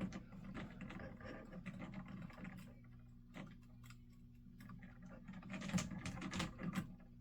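Scattered light clicks and taps of wires and small tools being handled at an alarm panel's terminals, over a steady low hum. The clicks come thicker near the end.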